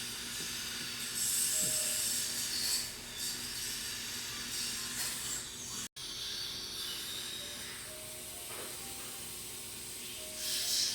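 Steady hissing noise with louder rushes of high hiss, under faint background music; the sound cuts out for an instant about six seconds in.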